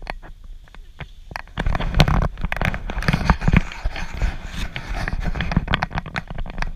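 Crackling and low rumbling on the camera microphone, which sounds like wind buffeting and rubbing on the mic, with dense irregular clicks. It gets much louder about a second and a half in.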